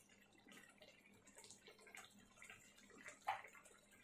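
Faint scattered pops and ticks of a prawn curry simmering in a wok, with one sharper click about three seconds in.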